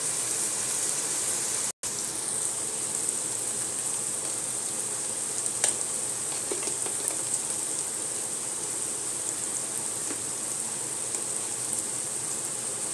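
Onion and garlic paste with ginger and whole spices frying in oil in a pot: a steady sizzle with a few small pops. The sound cuts out briefly about two seconds in.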